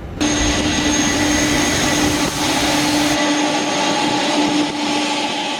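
Jet aircraft engines running: a steady whine with several held tones over a loud hiss, cutting in abruptly; a little past halfway the deep rumble beneath it drops away.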